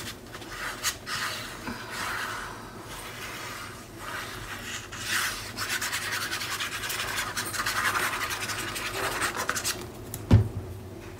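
Paper rubbing and rustling as a sheet of patterned scrapbook paper is handled, while the tip of a liquid glue bottle drags across it. A single knock comes near the end.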